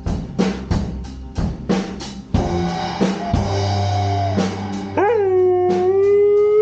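Music with a drum beat playing; about five seconds in a dog joins in with a howl that swoops up and then holds one long steady note.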